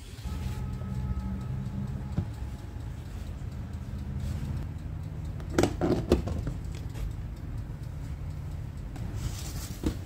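A clear plastic food-storage lid being pressed onto its tub, with two sharp snapping clicks about halfway through and another near the end, over a steady low hum.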